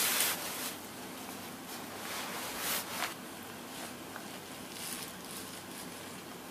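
Low steady hiss with a few short, soft rustles, the loudest right at the start.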